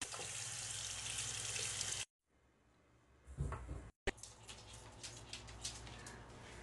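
Tap water running into a bathroom sink as dyed hair is rinsed, a steady hiss that cuts off about two seconds in. After that come only faint room sounds with a few soft knocks.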